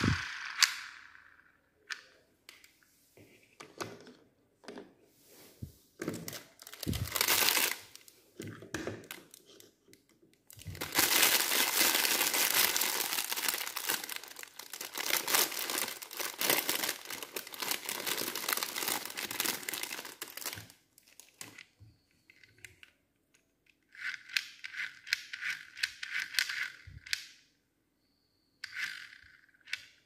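Clear plastic packaging bag crinkling and tearing as it is opened by hand, in short rustles at first and then a long loud stretch of continuous crinkling in the middle, with a few shorter rustles near the end.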